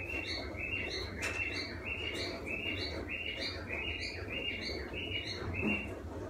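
A bird chirping repeatedly: short high calls, each dropping in a quick step, about two to three a second, stopping just before the end.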